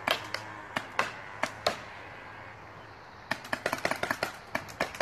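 Paintball markers firing: sharp pops in irregular volleys, a handful in the first two seconds, a short lull, then rapid shots from about three seconds in.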